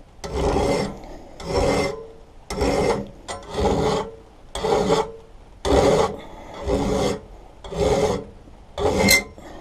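A hand file rasping along the steel cutting edge of a rotary lawn mower blade clamped in a vise, in nine even strokes about a second apart, sharpening out small nicks in the worn edge.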